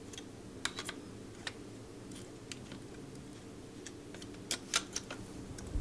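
Faint, scattered mechanical clicks and ticks of a Pentax K2 35 mm SLR being handled and its controls worked, a quick cluster about a second in and another near the end, over a low steady hum.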